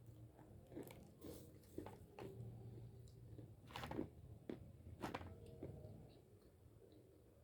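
A person chewing small chunks of Hyderabadi white clay close to the microphone, with irregular low crunches. The crisper ones come about four and five seconds in.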